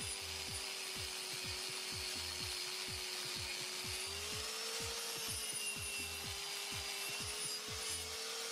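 Small angle grinder running steadily with an abrasive disc pressed against rusty steel, grinding the rust off a shock absorber strut part. Its motor pitch rises briefly about four and a half seconds in and again near the end as the pressure on the disc changes.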